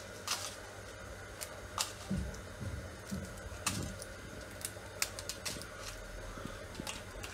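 Irregular light clicks and rustles of whole dried spices and dried red chillies being dropped and handled in an empty non-stick pan, with a few soft thumps about two to four seconds in.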